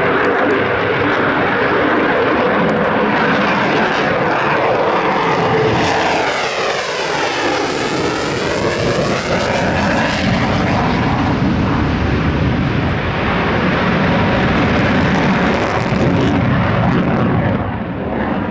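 Lockheed Martin F-22 Raptor's twin Pratt & Whitney F119 afterburning turbofans running at full power with afterburners lit: a loud, steady, rough jet noise. A sweeping phasing sound sets in from about six to ten seconds in as the jet passes.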